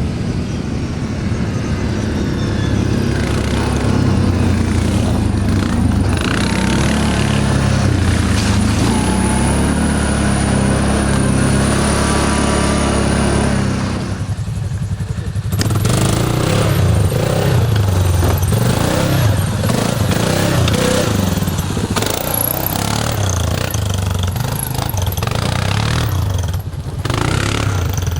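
ATV engine running and revving up and down as it is ridden, easing off briefly about halfway through and again near the end.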